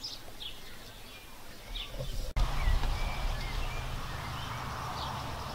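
Outdoor ambience: small birds chirping in short, scattered calls. About two seconds in, the sound changes abruptly and a steady low rumble joins, louder than before, with the birds still heard over it.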